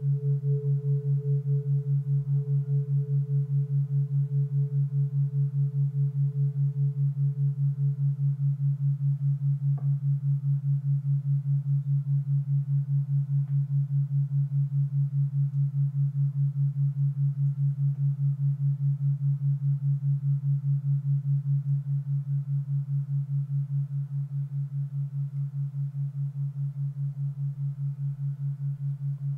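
A steady, evenly pulsing low tone from a brain-entrainment meditation track, dipping slightly in level about three quarters of the way through. Over it, a struck tuning fork rings a higher pure tone that fades out about a third of the way in, and there is a faint click around the same time.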